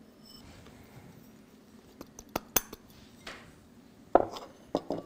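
Kitchen utensils clinking and knocking against dishes and a glass mixing bowl: a few sharp clinks about two seconds in, and louder knocks near the end.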